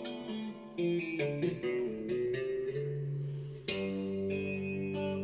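Fender Stratocaster electric guitar on a clean tone playing a quick run of tapped arpeggio notes. About three and a half seconds in, a fuller chord with a low bass note comes in and rings on.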